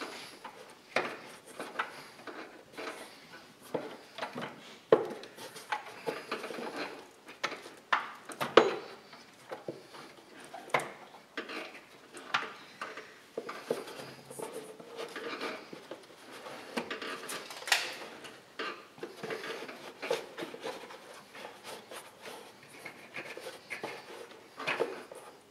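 Hands feeding a ribbed rubber serpentine belt through a car's engine bay: irregular light knocks, clicks and rubbing as the belt is twisted past the water pump and tensioner pulleys, with a sharper knock now and then.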